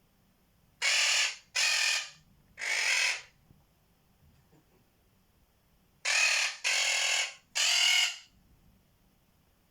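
Quaker parrot (monk parakeet) giving harsh, raspy squawks: three loud calls in quick succession about a second in, then another three about six seconds in.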